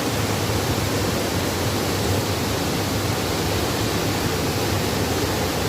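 Waterfall, the steady rush of falling water, loud and unchanging.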